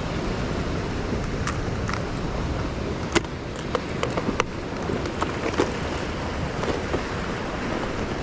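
Ocean surf and wind on a rocky shore, a steady rush of noise, with a few short sharp clicks, the loudest about three seconds in.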